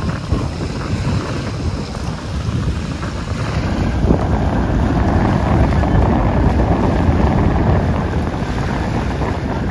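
Wind buffeting the microphone: a loud, fluttering low rumble with no voices, growing louder about three and a half seconds in.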